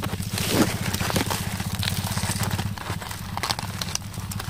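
Dry fallen leaves crackling and rustling in small irregular clicks as a hand sifts through the leaf litter, over a steady low hum.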